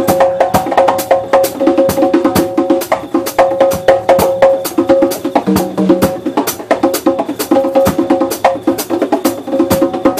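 Drum kit played live in a fast, busy rhythm of drum and cymbal strikes. Underneath it runs a steady held pitched tone.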